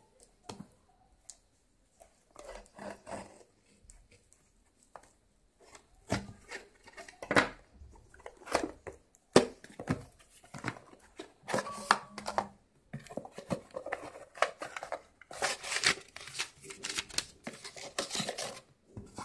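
A taped cardboard shipping box being torn open by hand: packing tape ripping and cardboard scraping and rustling in irregular bursts, sparse at first and busier and louder toward the end as the flaps come open.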